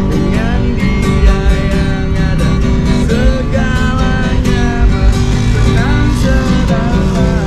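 A man singing live to his own strummed acoustic guitar, his voice bending through the melody over the chords.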